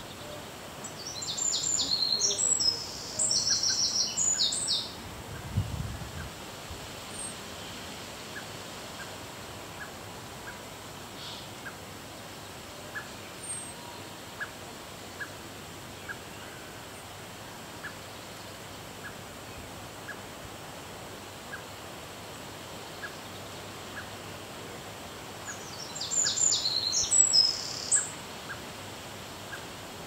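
A small songbird singing two loud, high, rapid trilling phrases of a few seconds each, one near the start and one near the end, with faint soft ticks about once a second between them.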